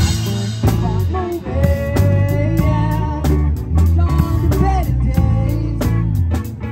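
Live band playing, with the drum kit close and loud over bass and a lead melody of held notes that bend in pitch.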